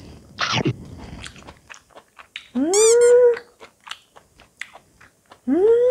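A woman chewing blanched sea squirt, with small wet mouth clicks. She lets out a quick breathy sound near the start, then a long high-pitched wordless hum of delight, the loudest sound, about halfway through, and a second one beginning near the end.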